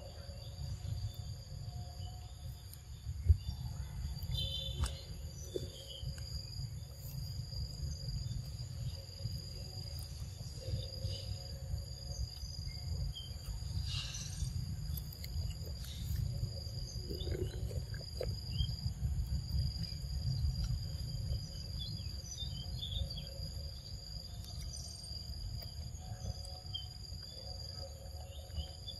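Insects droning steadily in several high-pitched tones over a steady low rumble, with a few faint scattered clicks and one sharp knock about three seconds in.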